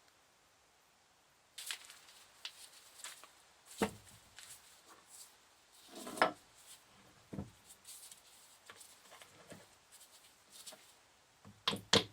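Metal parts of a Lucas C45 dynamo being handled and eased apart: scattered light clicks, scrapes and knocks, the loudest about 4 and 6 seconds in and a quick cluster of clicks near the end.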